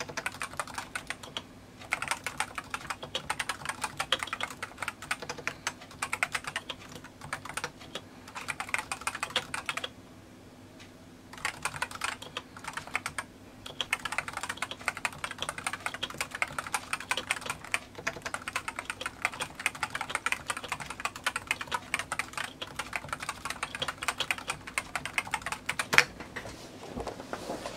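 Typing on a Realforce RGB keyboard with Topre electrostatic capacitive (contactless) key switches: fast runs of keystrokes broken by brief pauses, with one louder key strike near the end.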